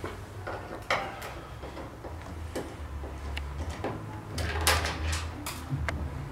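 Hand screwdriver undoing the screws of a Mazda MX-5 pop-up headlight cover: scattered clicks and knocks of the tool and cover, the loudest just before five seconds in, over a low hum.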